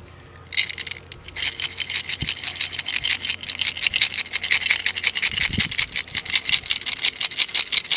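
Many small metal coins rattling and clinking together inside a clay pot as it is lifted and shaken: a dense run of clinks that starts about half a second in and grows busier after a second or so.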